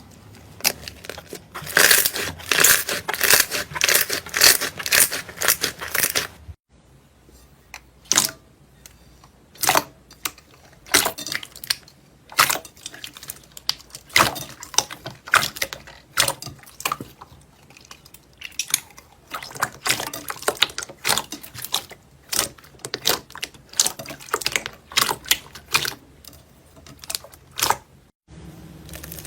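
Slime being squeezed and poked by hand, making rapid sticky clicks and pops. For the first several seconds they come thick and fast; after a brief break they come more sparsely.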